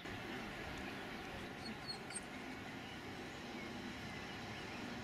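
Steady outdoor background noise, with a few faint high chirps about two seconds in.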